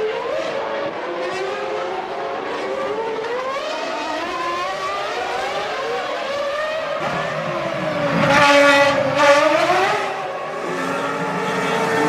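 1999 Formula One cars' 3-litre V10 engines at full racing revs, their pitch climbing and dropping through the gears. About eight seconds in, one car goes by loudest and closest, its pitch falling as it passes.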